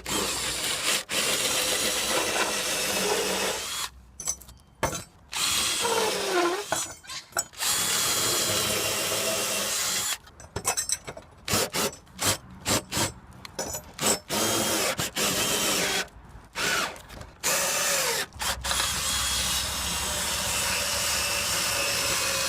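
Power drill driving screws through tile-roof mounting brackets into the timber top chords of a roof truss. It runs in several long pulls broken by short pauses, with a stretch of short stop-start bursts in the middle.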